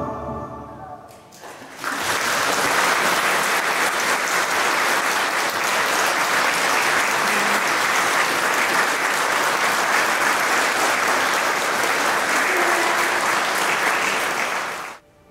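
Audience applauding in a reverberant church: the last sung chord of the choir dies away over about a second, then steady clapping starts and stops abruptly near the end.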